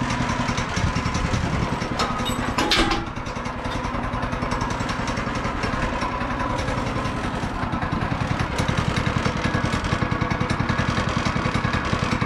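A small motor running steadily with a fast, even pulsing beat. A brief clatter comes about two to three seconds in.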